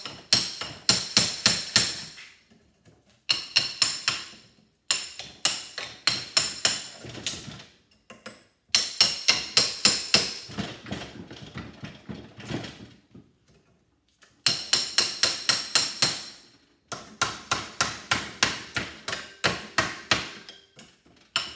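Hammer blows on a metal punch driving the steel core plates out of a small transformer clamped in a bench vise. The blows come in quick runs of ringing metallic strikes, about four a second, with short pauses between runs.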